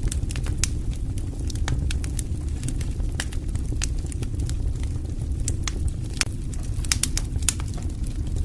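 Wood campfire burning: irregular sharp crackles and pops, several a second, over a steady low rumble of the flames.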